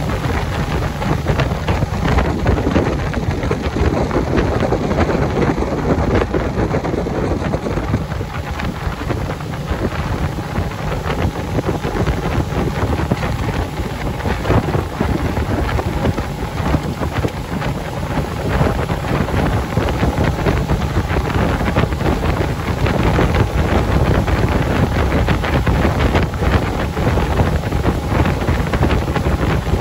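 Wind buffeting the microphone on a moving motorboat, over the steady low drone of the boat's engine and water rushing past the hull.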